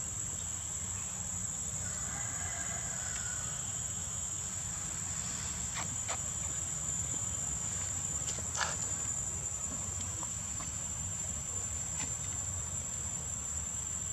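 Steady high-pitched insect chorus, with a low rumble underneath and a few faint clicks around the middle.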